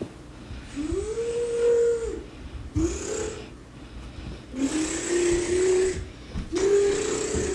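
A person groaning: four drawn-out moans, each rising at the start, holding, then dropping off.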